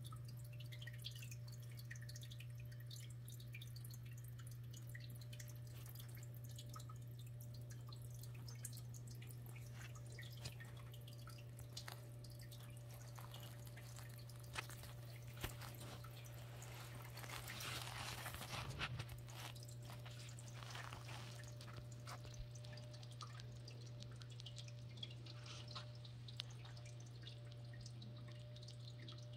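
Faint room tone: a steady low hum with scattered soft ticks and a brief rustle about eighteen seconds in.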